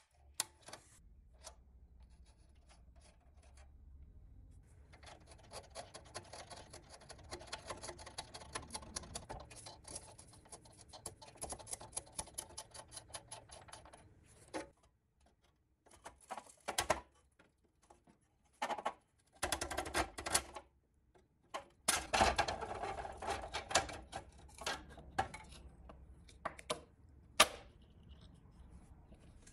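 Small metal parts clicking and rattling close up: a nut spun off a rusty threaded bolt by hand, giving a long run of fast, dense clicks. Then several shorter bursts of clicking and scraping as the long threaded bolt, standing in for the axle, is drawn out through the plastic toy wheel, and a single sharp click near the end.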